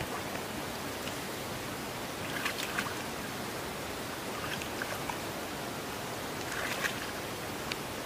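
Steady outdoor hiss with a few faint, short clicks in two small clusters, about two and a half seconds in and again near seven seconds.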